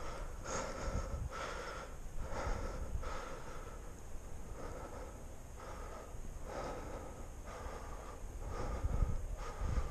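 A person breathing hard close to the microphone, each breath a soft rush in and out, about one a second. Low wind rumble on the microphone near the start and end.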